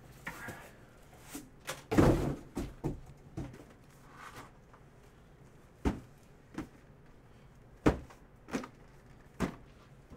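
Hollow knocks and thuds from sealed cardboard mini-helmet boxes being handled and set down on a table. A cluster of knocks comes about two seconds in, then single sharp knocks follow every second or so near the end.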